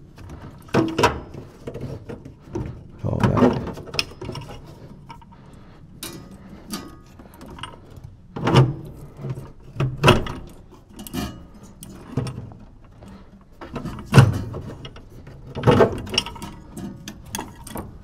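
Metal gas manifold pipe of a gas furnace being worked into place against the burner assembly and sheet-metal cabinet: irregular knocks, clanks and rattles, about half a dozen of them loud.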